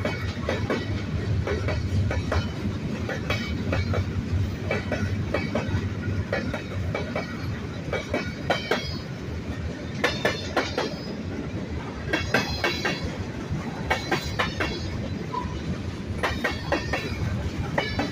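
Freight train cars rolling past, with a steady rumble and the wheels clattering over the rail joints. Irregular metallic clanks and short high wheel squeals come through, thicker in the middle of the stretch.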